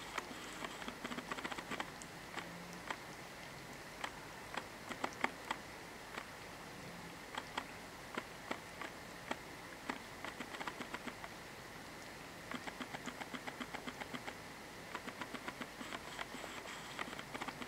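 A cat grooming itself, licking its paw and fur: runs of quick clicking licks, several a second, broken by short pauses.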